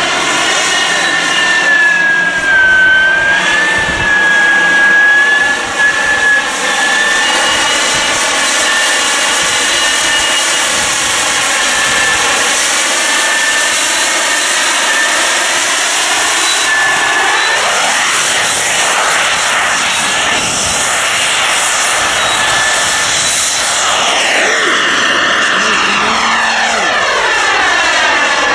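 Turbine engine of a CARF J-10 radio-controlled model jet in flight: a steady, loud jet sound with a high whine that wavers in pitch during the first few seconds. From about two-thirds of the way through, the sound sweeps up and down as the jet passes by.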